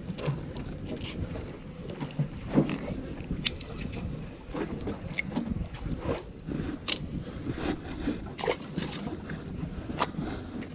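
Wind buffeting the microphone as a steady low rumble, with scattered sharp clicks and knocks from handling gear: metal pliers, a fish towel and a plastic cooler.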